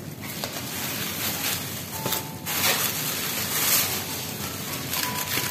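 Plastic bag and aluminium foil food wrappings crinkling and rustling as they are handled, with a denser stretch of crackling from about two and a half seconds in.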